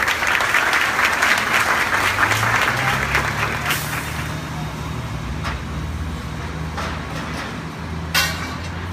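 Applause for about the first three seconds, then the low, steady drone of vehicle engines in street traffic, with a brief hiss near the end.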